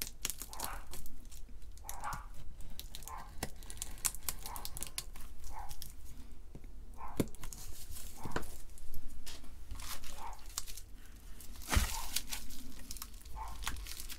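Bubble-wrap packaging crinkling and tearing as it is cut and pulled open by hand, in irregular crackles. A dog barks repeatedly in the background, about once a second in the first half and a few more times near the end.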